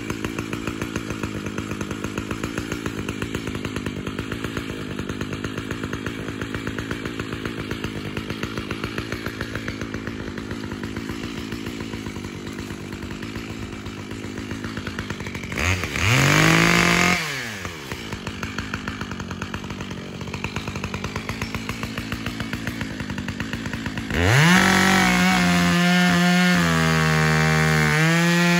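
Makita (Sachs-Dolmar) two-stroke chainsaw idling with an even pulsing beat. It is blipped to high revs once for a second or so about halfway through, then opened to full throttle near the end and held there as it starts cutting into a small tree.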